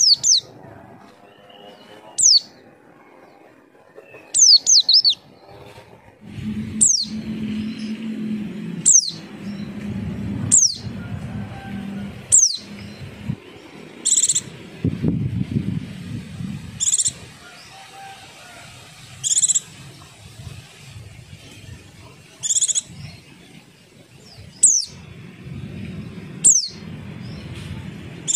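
White-eye (pleci) calls: short, sharp, high notes that slur downward, repeated about every two seconds. From about halfway through they alternate with brief buzzy chirps. A low rumble runs underneath in the middle stretch.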